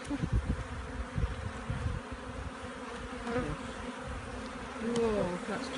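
Honeybees buzzing over an open hive: the steady hum of a busy colony, with a louder buzz falling in pitch about five seconds in.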